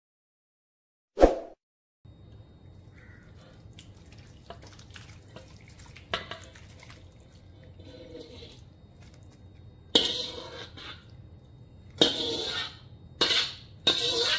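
Kitchen work sounds: small clicks and drips over a faint low hum, then four short bursts of splashing water in the last few seconds. A single sharp sound about a second in, after a brief silence.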